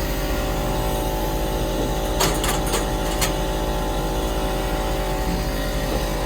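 A steady machine hum, engine-like, with a few sharp knocks about two to three seconds in.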